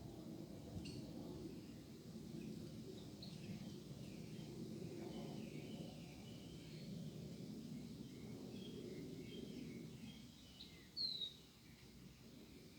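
Small birds chirping faintly and sporadically over a steady low background rumble, with one louder, short falling chirp about eleven seconds in.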